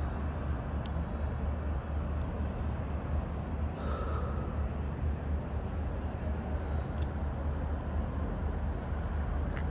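City street ambience: a steady low rumble of traffic and outdoor noise, with a few faint clicks and a short hiss about four seconds in.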